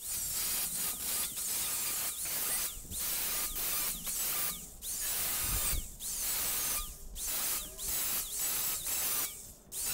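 Angle grinder with a cut-off disc cutting through the steel wires of a wire cooling rack: a hissing grind broken by short pauses about once a second as each cut is made.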